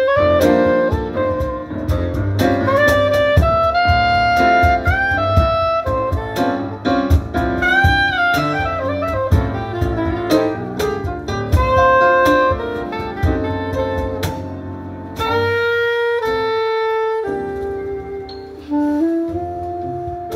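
Live jazz: a soprano saxophone plays a melody over cajón percussion and grand piano. About three quarters through, the percussion and bass drop out for a couple of seconds while the saxophone holds long notes, then the band comes back in.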